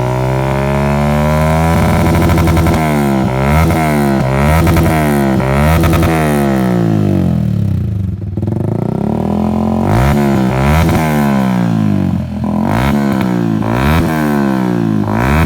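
Yamaha R15 V2's 150 cc single-cylinder engine through a Balera Feroce Bluesand V2 aftermarket racing exhaust, revved in repeated quick throttle blips so the pitch keeps rising and falling. About halfway through it drops back to a low idle, then the blipping starts again.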